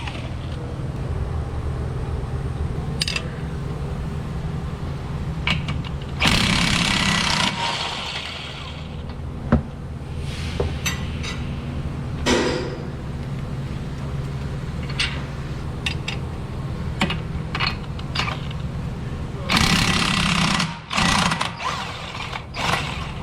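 Impact wrench running in two longer bursts during axle removal work, about six seconds in and again near the end, with short metallic clicks and knocks between them over a steady low hum.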